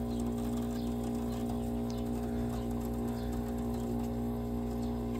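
Vintage window air conditioner running in cooling mode, with compressor and fan giving a steady hum that has a pronounced pitched tone.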